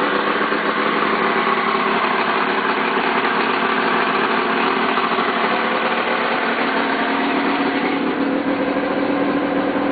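1974 Mercury 1500 (150 hp) inline-six two-stroke outboard idling steadily after a fresh start, running well.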